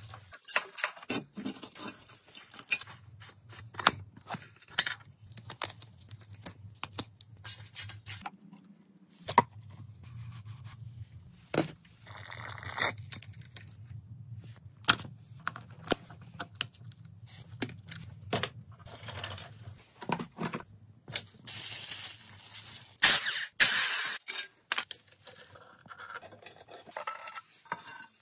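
Metal tools clinking, tapping and scraping against grimy old motorcycle engine parts while they are worked on, with two longer harsh scraping bursts, the loudest near the end, over a low steady hum.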